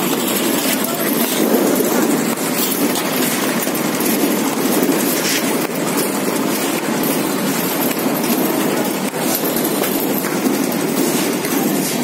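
Engine-driven construction machinery running steadily during a concrete slab pour, a dense continuous rumble with no clear rhythm.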